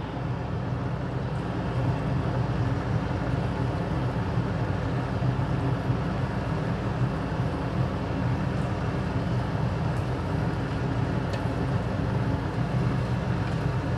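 Steady low hum of a running electric fan.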